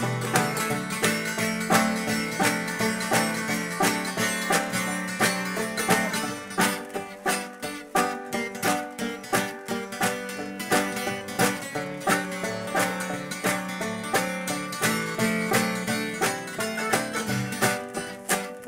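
Live acoustic band playing an instrumental passage: acoustic guitar and other plucked strings picking quick, even notes.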